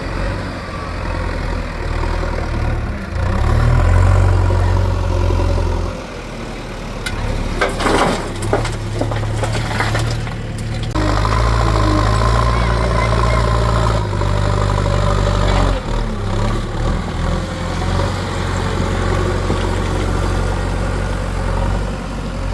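Heavy diesel engine running and working under changing load, its note rising and easing several times. A spell of knocks and clatter comes about eight to ten seconds in.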